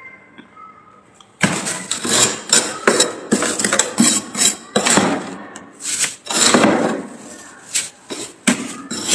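A large metal spoon scrapes and digs through thick, packed frost inside a freezer compartment. It makes quick, irregular crunching strokes that start about a second and a half in.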